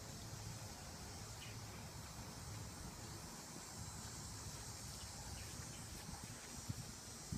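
Faint outdoor background: a steady high insect drone over a low rumble, with two soft knocks near the end.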